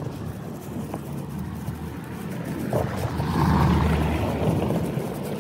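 Wind rumbling on a phone microphone during a walk outdoors, swelling louder about three seconds in and easing off toward the end.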